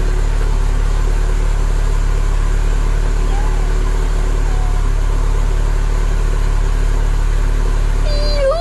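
Standard 2.0-litre Ford Pinto four-cylinder engine, fitted with an unleaded cylinder head, running steadily with a rapid low firing pulse.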